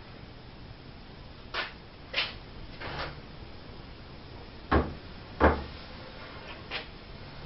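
Wooden 2x4 stretcher board knocking against the 2x4 legs and frame of a table as it is worked into place: about six separate wooden knocks, the two loudest, with a low thud, coming close together a little past halfway through.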